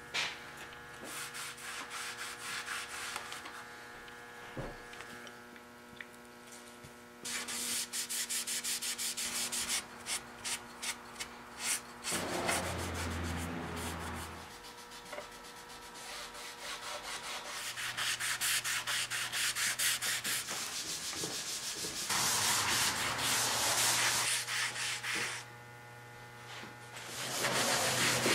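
Cloth rag wet with alcohol rubbed briskly over the old shellac finish of an antique wooden chair, in runs of quick back-and-forth strokes with pauses between. The alcohol is dissolving and reviving a finish clouded by water damage. A low thud comes about halfway through.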